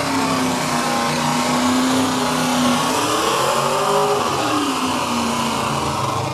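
Chevrolet C-10 pickup's engine running under load as the truck churns through deep mud. It revs up about three seconds in and drops back a second later.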